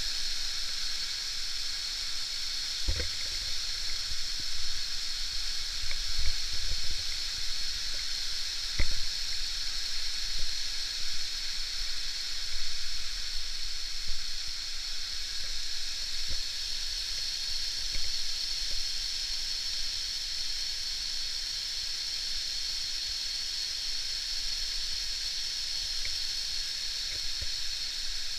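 Steady rushing hiss of the Prenn waterfall's falling water, with a few brief low thumps in the first part.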